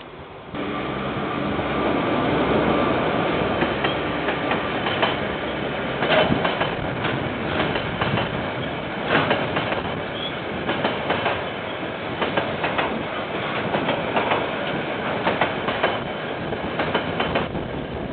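KiwiRail train rolling past close by, its wheels clacking irregularly over the rail joints. The sound cuts in abruptly about half a second in.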